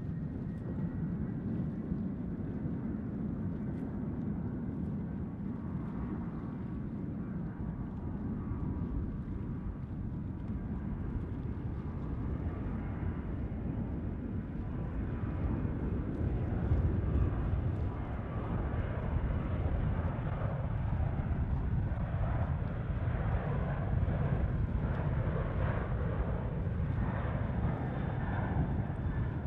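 Twin CFM56 jet engines of a Boeing 737 at takeoff thrust during the takeoff roll: a steady low rumble with a whine held high above it, growing louder from about halfway through.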